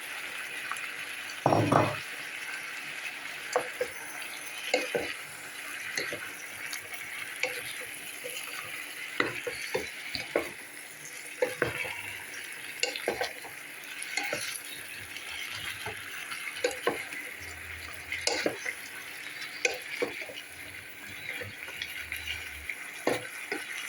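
Chicken and carrots sizzling as they fry in a pan, with a steady hiss, while a utensil stirs them and clicks against the pan many times. A louder knock comes about a second and a half in, as the carrots go in.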